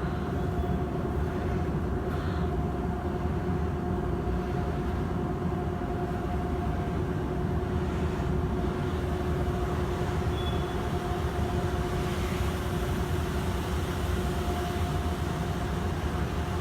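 A machine running steadily: an even low rumble with a steady droning hum.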